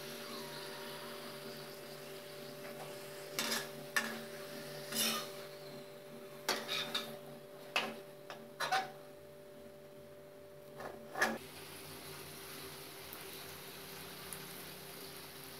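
Metal spatula clicking and scraping against a kadai as a frying paratha is lifted and turned in the oil. There is an uneven string of knocks between about 3 and 11 seconds, over a steady hum.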